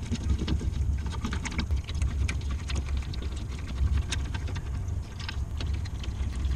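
Scattered light metallic clicks and ticks of loosened hub-bearing bolts being unthreaded and handled by hand, over a steady low hum.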